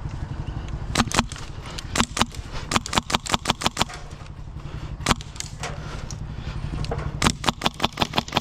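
Airsoft guns firing: single and double shots, then rapid strings of about eight shots a second, over a steady low rumble.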